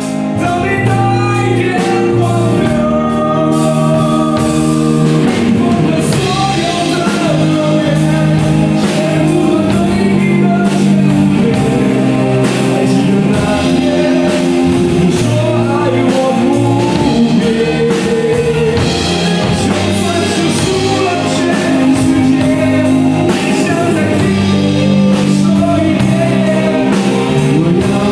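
Live rock band playing, with a man singing lead into a microphone over electric guitar, keyboard, bass and drums. The music comes in right at the start and runs steadily.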